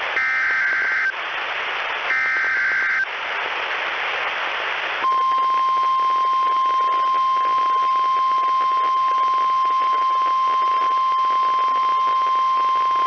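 Emergency Alert System transmission received over a weather radio. Two roughly one-second bursts of warbling SAME digital header data tones are separated by radio hiss. After a couple of seconds of hiss, the steady single-pitched NOAA Weather Radio warning alarm tone (1050 Hz) starts about five seconds in and holds.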